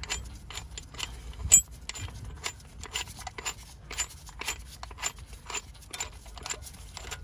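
Screw-type brake caliper piston compressor being wound in by hand against the caliper piston, giving short metallic clicks about twice a second, with one louder knock about a second and a half in.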